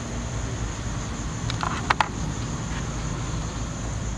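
A spatula stirring raw chicken pieces into a pan of gravy, with a few sharp taps of the spatula on the pan about two seconds in. Underneath is a steady low hum and a constant high-pitched cricket drone.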